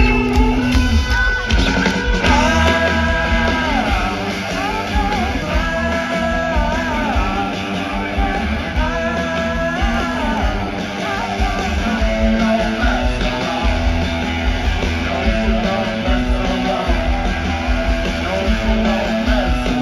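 Live rock band playing through a large outdoor PA, with a sung vocal line over guitar and heavy bass, heard loud from within the crowd.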